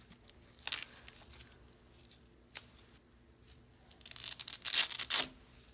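Velcro (hook-and-loop) strap of a surfboard leash being pulled apart: one short rip just under a second in, then a run of quick rips lasting about a second near the end.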